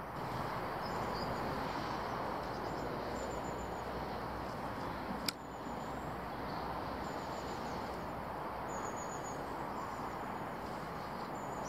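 Steady outdoor background noise with short, high chirps of small birds now and then, and one sharp click a little after five seconds in.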